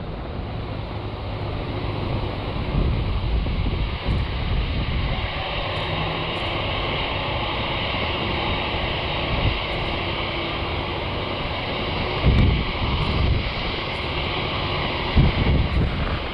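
Boeing 747-8F's four GEnx jet engines running, a steady rushing whine, with gusts of wind buffeting the microphone about twelve and fifteen seconds in.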